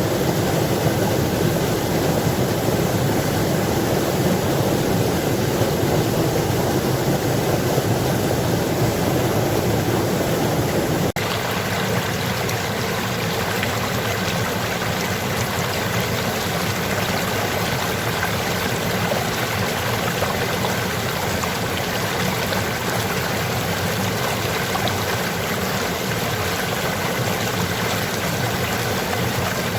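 Water rushing steadily in a stream. About eleven seconds in the sound changes abruptly to a slightly quieter, lighter flow.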